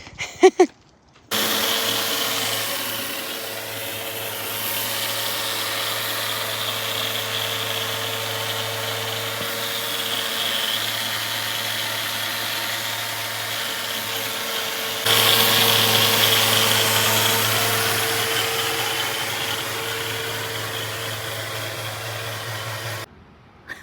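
A power tool running steadily, with a low hum and hiss. It starts abruptly, gets louder about two-thirds of the way through, and cuts off sharply near the end.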